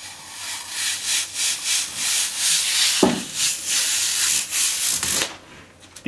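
Rhythmic rubbing strokes of a hand on a glass PC side panel held close to the microphone, with a short squeak falling in pitch about three seconds in. The rubbing stops shortly before the end.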